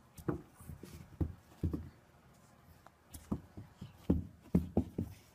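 A small dog's paws thumping on carpet as it runs and pounces: a string of soft, irregular thuds.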